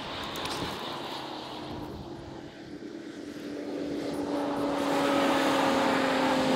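An engine drone, its pitch slowly falling and growing louder from about four seconds in.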